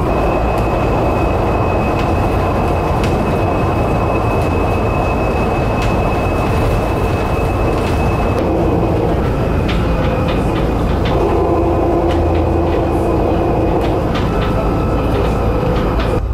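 Cabin noise inside a battery-electric low-floor bus cruising at about 60 km/h on a motorway: a steady road and tyre rumble with a high whine held through the first half. Light clicks and rattles of interior fittings in the second half.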